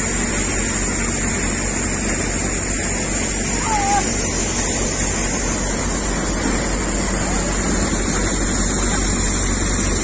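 Motorized paddy thresher running steadily with an even, constant drone and low hum while harvested rice is threshed.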